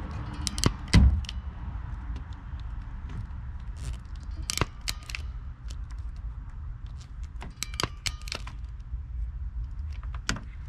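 Knipex self-adjusting ferrule crimping pliers clicking and snapping as they crimp a ferrule onto spliced blue wires. The loudest snap comes about a second in, with further clicks around the middle and near the end, over a steady low rumble.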